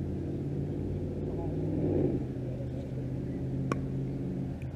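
A steady low motor hum, swelling briefly near the middle, with a single sharp pickleball tap late on.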